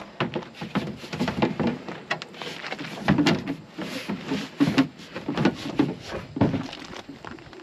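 A kayak being manhandled onto a van's roof rack: repeated irregular knocks and thumps of the hull against the rack and the kayak beside it, with heavier thuds about three, four and a half and six and a half seconds in.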